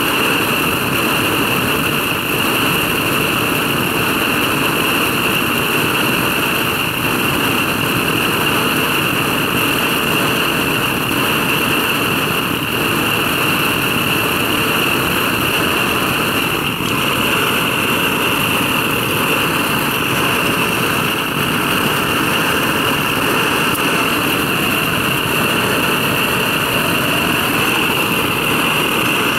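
Boucher petrol blow torch burning steadily: an even, loud rushing hiss with a constant high-pitched note running through it.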